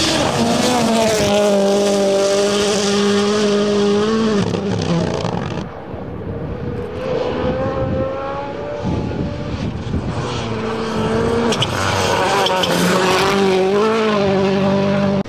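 WRC Rally1 cars' turbocharged 1.6-litre four-cylinder engines at high revs on loose gravel, two passes cut together. The first holds a steady pitch flat out, then lifts about four seconds in; after a cut near six seconds, a second car revs up and down through gear changes, with gravel spray under its tyres.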